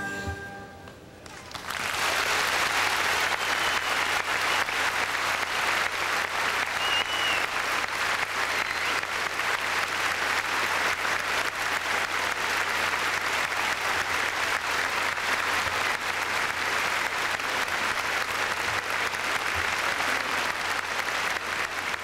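Music fades out in the first second, then an audience breaks into steady, sustained applause about a second and a half in.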